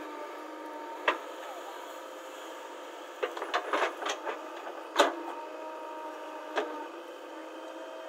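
JCB 3DX backhoe loader's diesel engine running steadily, sounding thin with no low end, while its bucket digs a trench in stony soil with sharp knocks and scrapes: one about a second in, a cluster in the middle, and the loudest about five seconds in.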